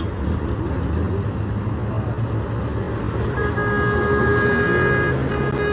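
Road traffic with a vehicle engine running steadily; a car horn sounds one steady note for under two seconds about three and a half seconds in, and another short toot begins near the end.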